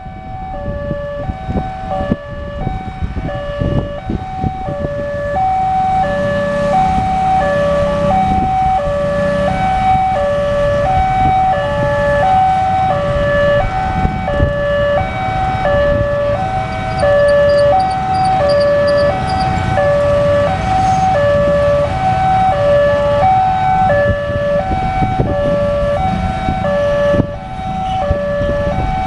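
A railway level-crossing warning alarm sounding continuously: an electronic two-tone signal alternating high and low notes, each under a second long. A second crossing alarm in a different tone sounds over it. It is the warning that a train is approaching and the barriers are down.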